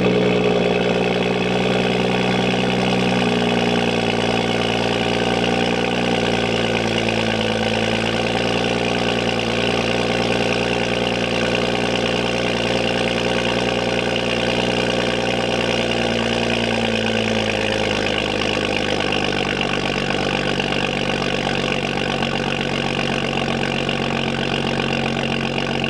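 BMW F30 335i's turbocharged inline-six idling through its new exhaust just after starting. It holds a raised idle that settles to a lower, steady idle about seventeen seconds in.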